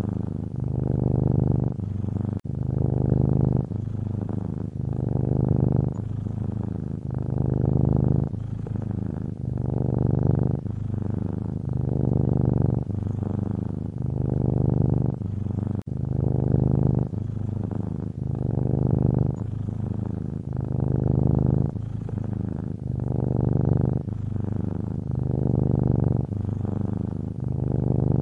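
Domestic cat purring, close and steady, swelling and easing with its breathing about once every two seconds.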